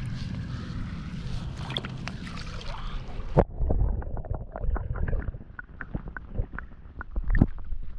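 Water sloshing and splashing with knocks as a large pike is handled and let go at the water's edge. About three and a half seconds in, a sharp knock comes and the sound turns muffled, followed by a string of knocks and splashes.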